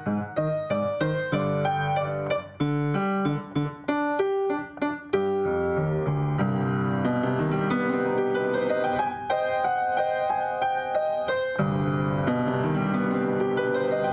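Piano being played: short, separated chords and notes with small gaps for about the first five seconds, then sustained, overlapping notes at an even level.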